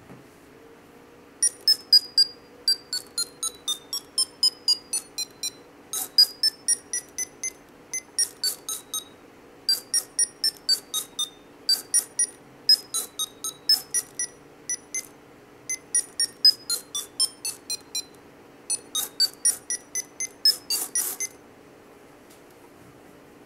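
Arduino-driven piezo buzzer beeping short electronic tones in quick succession, about four or five a second, in runs that step down and then up in pitch as the light level on its sensor changes. The beeps start about a second and a half in and stop a couple of seconds before the end.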